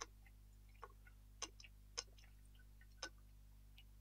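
Faint, irregular small clicks, about five spread over four seconds, as propylene glycol is poured from a plastic bottle into an e-liquid bottle.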